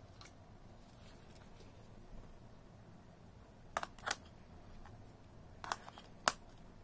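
Sharp plastic clicks as a BL-5C battery is pressed into the battery compartment of a handheld mini wireless keyboard. There are four clicks: two close together about four seconds in and two more near the end, the last the loudest.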